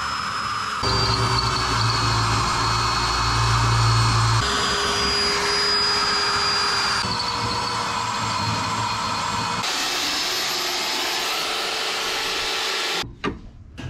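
Corded Milwaukee electric drill running as it drills out spot welds in the steel car body. Its steady motor whine changes pitch abruptly several times. It stops about a second before the end, and a few sharp clicks and knocks follow.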